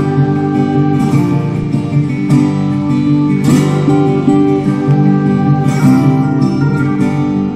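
Background music led by acoustic guitar, strummed and plucked with regular strokes.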